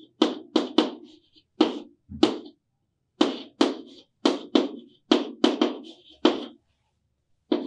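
Chalk tapping and scraping on a chalkboard while writing: about a dozen short, sharp strokes in quick runs, with brief pauses about two and a half seconds in and near the end.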